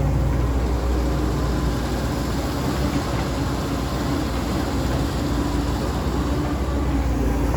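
CAT 320D2 GC excavator's diesel engine running steadily under working throttle, a deep continuous rumble.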